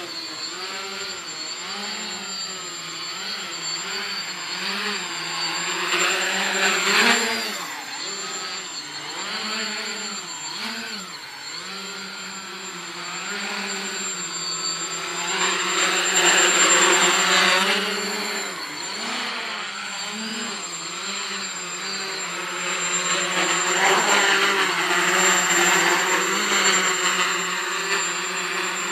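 A small quadcopter's motors and propellers whirring as it hovers low, the pitch wobbling up and down constantly as the throttle is corrected. It gets louder three times, near 7 s, around the middle and toward the end.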